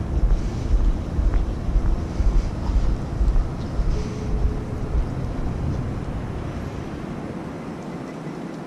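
Wind buffeting the microphone as a gusty low rumble that eases off over the last couple of seconds, over faint outdoor street noise.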